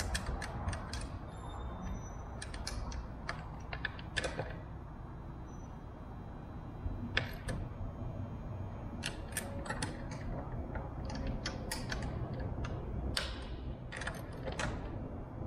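Metal hand-tool clicks and ticks from a wrench working the bolts of a tailwheel bracket, coming in uneven clusters, over a low steady rumble.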